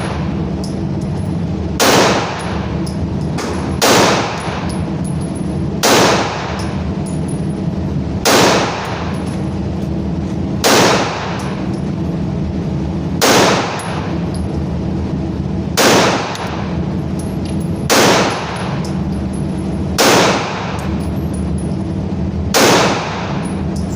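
Ten gunshots fired at a slow, even pace, about one every two to two and a half seconds, each with a short ringing tail, over a steady low hum.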